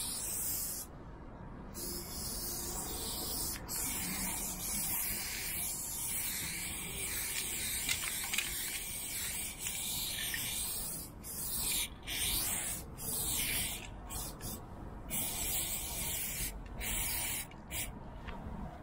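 Aerosol spray-paint can hissing in long bursts, broken by short pauses as the nozzle is released and pressed again, while fill colour is sprayed onto a train car.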